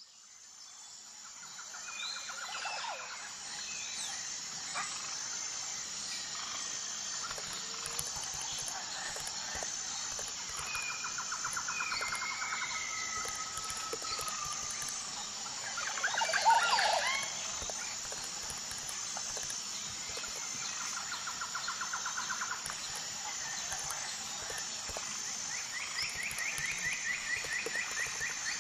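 Nature ambience of birds trilling and calling over a steady, pulsing high insect chirring, fading in at the start. A louder flurry of bird calls comes about sixteen seconds in.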